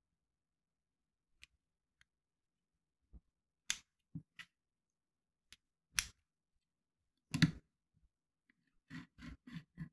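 Small plastic Lego car being handled as its wheels are pressed on: scattered sharp plastic clicks and taps, the loudest about seven seconds in as the car meets a hard tabletop, then a quick run of about five soft knocks near the end.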